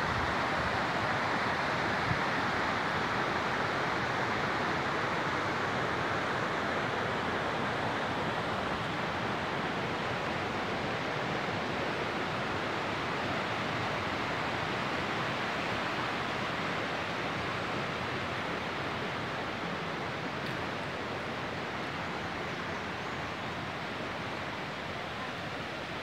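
Steady rush of water from a small river waterfall, slowly growing fainter towards the end.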